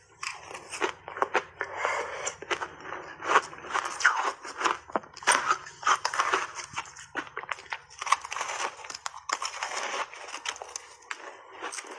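Frozen mango-flavoured ice being bitten and chewed in big bites: a dense, irregular run of sharp crunches.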